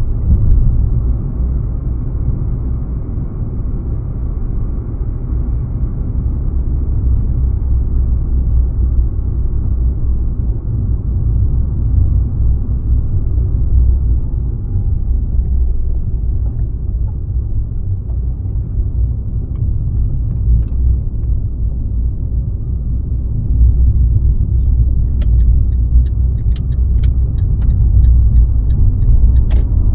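Car driving, its steady low rumble of road and engine noise getting a little louder near the end. A scatter of sharp clicks comes in the last few seconds.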